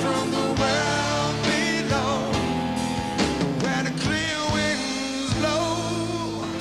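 Live pop-rock band music, with the male lead vocalist singing over the band.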